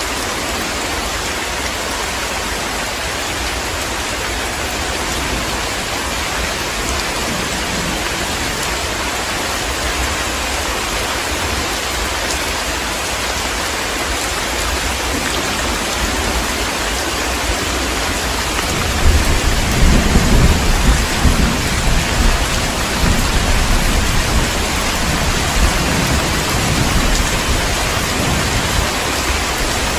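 Heavy rain falling steadily. About two-thirds of the way through, a roll of thunder rumbles in and slowly fades.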